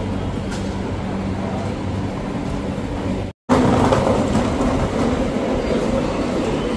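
Steady low hum of idling vehicle engines and street traffic. After a brief dropout about a third of the way in, it gives way to the louder, busier background hubbub of an indoor shopping arcade.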